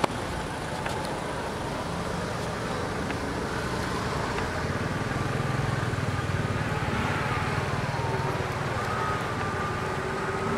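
Steady background rumble of road traffic, with a vehicle's engine hum that swells in the middle and a faint, slowly wavering engine tone. A single sharp click right at the start.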